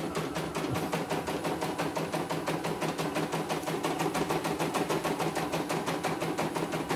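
CNY E900 embroidery machine stitching out a design, its needle going up and down in a fast, even rhythm of roughly ten stitches a second.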